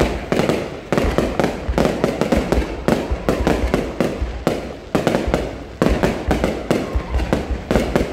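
Fireworks going off in a rapid, unbroken barrage of bangs, several a second.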